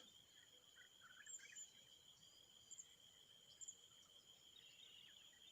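Near silence: faint outdoor ambience with a steady high-pitched insect drone and a few faint bird chirps about a second and a half in.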